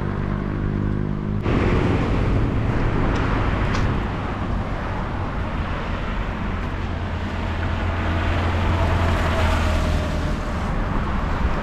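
Road traffic on a multi-lane highway: cars, a minivan and a motorbike passing, with engine hum and tyre rush. A steady engine drone stops abruptly about a second and a half in, giving way to the broad rush of passing vehicles.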